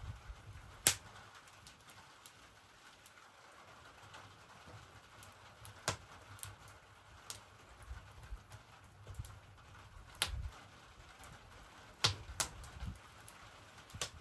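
A wood fire crackling, with sharp single pops every few seconds, the loudest about a second in. Faint sandhill cranes call in the distance.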